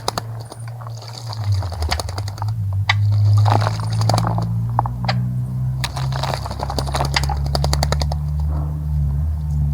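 A bird splashing in a birdbath: quick runs of pattering splashes and wing flicks, the longest near the end, over a steady low hum.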